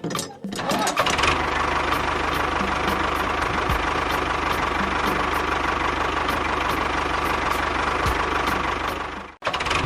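A motor running steadily. It starts about a second in and cuts off suddenly near the end.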